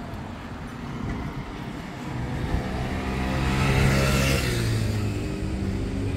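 A car driving past. Its engine hum and tyre noise grow louder to a peak about four seconds in, then fade, the pitch falling as it goes by.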